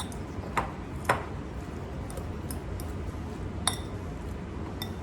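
A few sharp clinks of kitchen utensils against dishes, three of them louder than the rest, over a steady low background noise.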